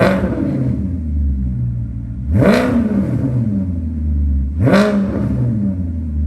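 Maserati's naturally aspirated 5.0 V8 free-revving at a standstill through an aftermarket valved exhaust with the valve open. The revs fall back to idle at the start, then come two sharp throttle blips about two seconds apart, each dropping back to a steady idle.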